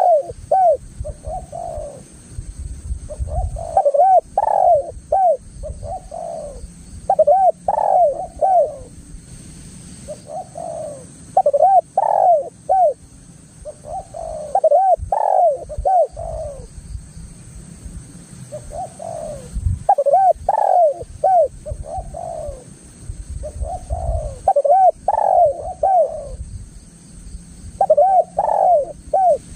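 Spotted dove (tekukur) cooing loudly in its full song, a string of rolling coos repeated in bouts every few seconds.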